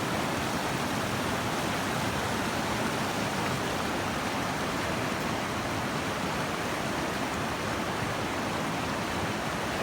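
Flash-flood water rushing down a creek bed in a steady, unbroken wash of noise.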